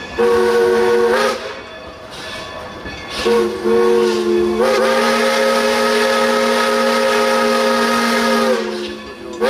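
Steam locomotive whistle sounding a chord of several tones: a blast of about a second, then after a pause a short blast that runs straight into a long one of about four seconds. These are crossing signals as the train nears a level crossing. Between the blasts the train's running noise goes on.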